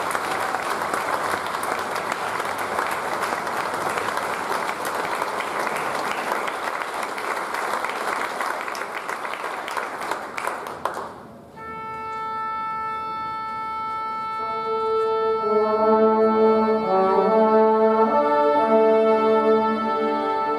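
Audience applauding, cutting off about eleven seconds in. A symphony orchestra then begins with a long held chord, and moving melody lines enter a few seconds later.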